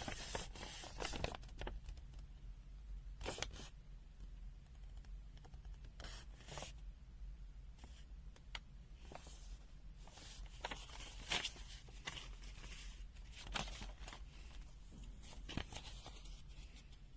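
Pages of a paper user manual being turned and handled: a series of short paper rustles spaced a second or more apart.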